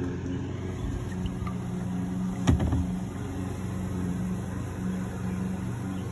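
A motor running with a steady low hum, and one sharp knock about two and a half seconds in as the bait tank's lid is opened.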